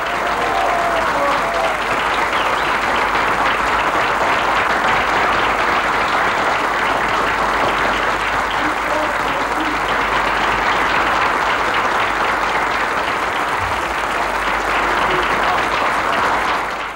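A large studio audience applauding steadily, fading out at the very end.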